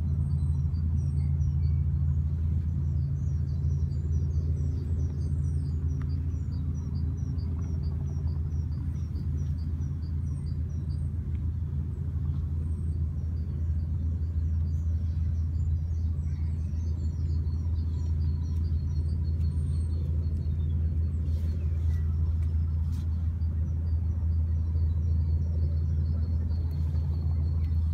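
Steady low rumble, like distant road traffic, with a small bird chirping repeatedly in short high notes over it.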